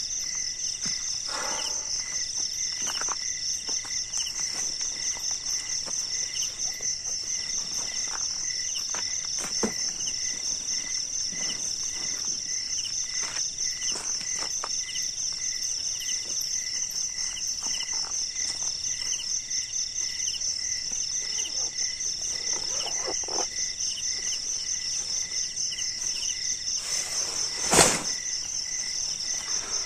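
A dense chorus of night insects: a steady, very fast high-pitched trill, with a slower repeating chirp below it. Scattered small clicks and footsteps on gravel come through, and near the end there is a brief loud rustle as the nylon pop-up tent is handled.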